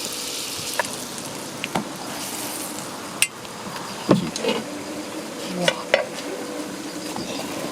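Food sizzling in a pan over a steady hiss, with half a dozen sharp clicks and knocks of utensils against the pan or dishes.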